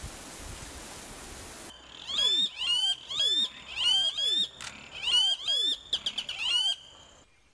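A steady hiss, then a pair of blackish rails calling together loudly. Each call is a high note with a sliding drop, repeated about once a second, and the calls come in a quicker run near the end.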